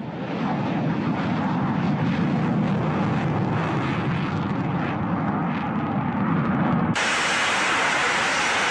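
F-35 fighter jet engine noise, a steady deep rumble as the jet takes off and climbs away. About seven seconds in it changes abruptly to a brighter, hissing jet noise as an F-35 hovers over a ship's flight deck.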